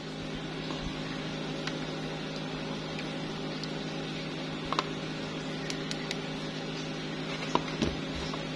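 A steady machine hum, with a few light clicks and taps from plastic lighter cases and cardboard boxes being handled. The clearest taps come about five seconds in and as a pair near the end.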